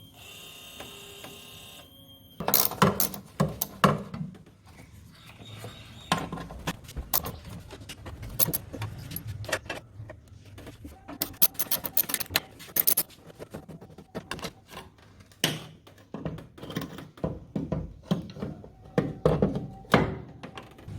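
Irregular metallic clinks, knocks and rattles of hand tools and metal parts being handled, with uneven gaps between the strikes.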